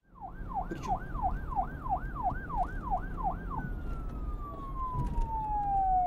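Electronic police-style siren sound effect: a fast yelp of about three rises and falls a second for three and a half seconds, then one long slowly falling tone, over a low rumbling noise.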